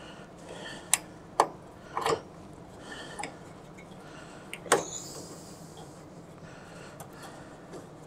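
Sharp little clicks of a low-profile CPU cooler's push-pin latches being twisted and pulled up to release them from the motherboard: three in the first two seconds, then a louder one about halfway through.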